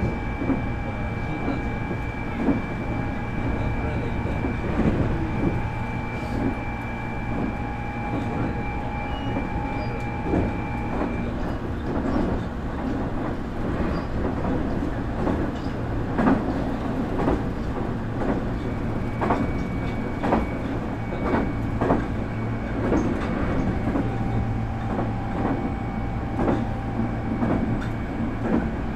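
Nankai 8300 series electric train running, heard from aboard the motor car: a steady whine from its IGBT VVVF inverter and Toyo Denki totally enclosed induction motors cuts out about eleven seconds in and comes back faintly later. Clickety-clack of wheels over rail joints runs throughout over a low rumble, more often in the second half.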